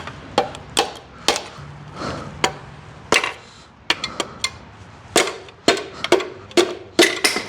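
Sharp metal-on-metal knocks and clinks, about two a second at an uneven pace, as tools work on the bottom end of a GM 3.6 V6 engine.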